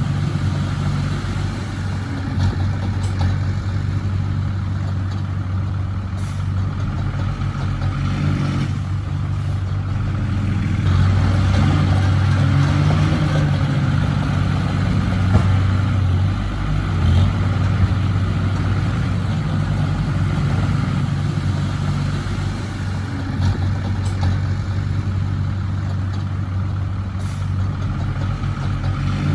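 Heavy-equipment diesel engine running steadily under work, growing louder with shifts in pitch for several seconds near the middle.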